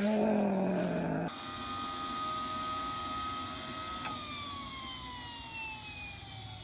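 Small jet engine being spun up for a start: a lower falling tone for the first second or so, then a steady high whine that, about four seconds in, winds down in a steady falling pitch. The start fails and the engine does not light.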